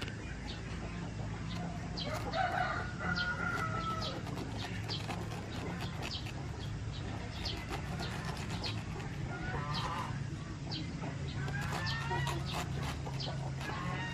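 Chickens calling in the background, a rooster crowing and hens clucking, loudest about two seconds in and again in the last few seconds, with scattered short sharp clicks over a steady low hum.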